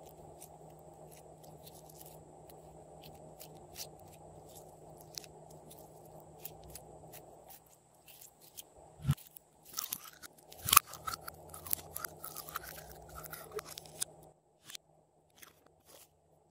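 Hands squeezing and stretching a lump of clear red jelly slime: sticky crackling and popping clicks, sparse at first, then dense and loudest for several seconds past the middle.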